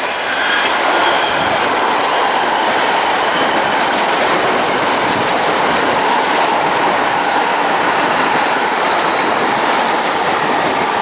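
Electric multiple-unit passenger train passing close by, a steady loud rush of wheels on rail, with a clickety-clack of wheels over rail joints.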